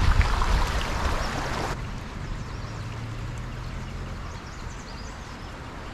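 Brook water running steadily, louder for the first couple of seconds, then cutting suddenly to a quieter stretch of flowing water.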